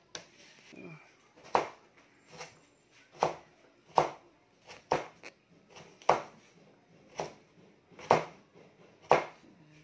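Kitchen knife chopping raw sweet potato into strips for fries, each stroke a sharp knock on the cutting board, about one a second.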